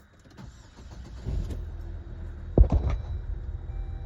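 A car engine idling steadily, with one loud thump about two and a half seconds in.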